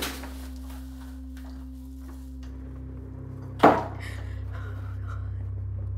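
Soft sustained music tones, then a low car-engine rumble sets in and a car door shuts with a sharp thud about three and a half seconds in.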